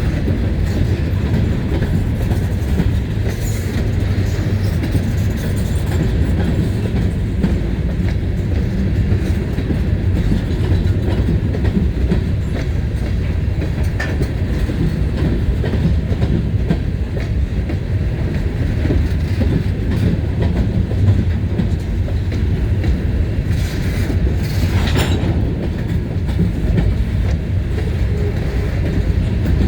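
CSX freight train of covered grain hopper cars rolling past, a steady low rumble throughout, with a brief higher-pitched noise about 25 seconds in.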